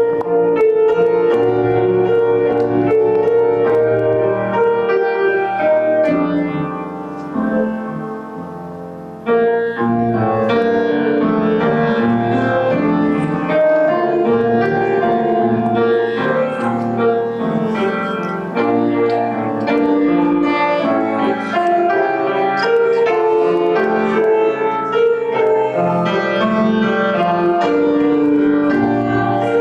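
Acoustic grand piano played solo, a continuous flowing piece that grows softer about seven seconds in and comes back fuller about two seconds later.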